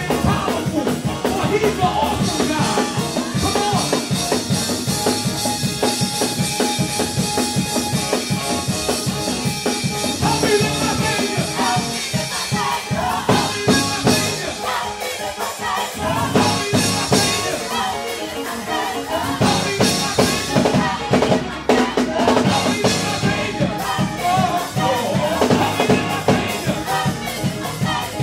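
Live gospel music: a group of singers with keyboard and drum kit playing an upbeat song with a steady beat. The bass and drums briefly drop out about halfway through, then come back in.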